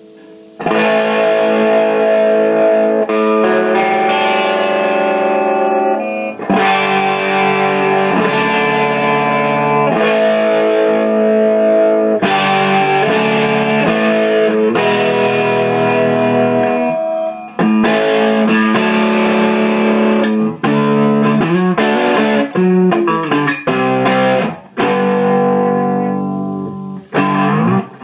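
Gibson ES-335 electric guitar played with distortion through a Carlsbro TOP 100 amp head and a Marshall 4x12 cabinet. Long ringing chords start about half a second in, and the playing turns into short, stop-start chords in the second half.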